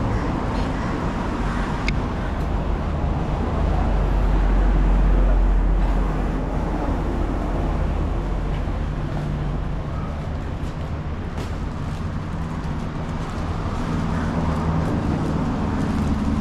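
Street traffic and a vehicle engine running with a steady low rumble, swelling louder about four seconds in, with a few faint knocks as plastic bread crates are handled.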